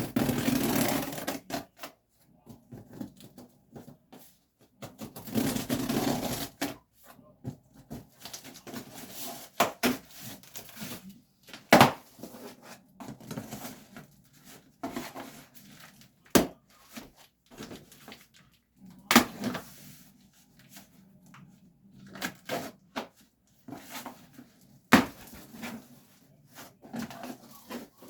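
Packaging and a small appliance being handled by hand: stretches of rustling broken by scattered sharp clicks and knocks, a few of them louder.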